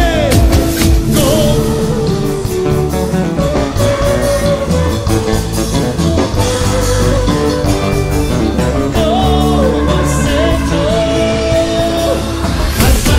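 Loud recorded Andean saya caporal dance music with singing. The drums ease back into a calmer passage of held tones, then the beat comes back in just before the end.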